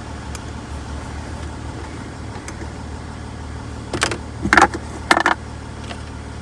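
Range Rover engine idling, heard inside the cabin as a steady low hum. A few plastic clicks and knocks about four to five seconds in, as the centre-console lid and storage tray are lifted open.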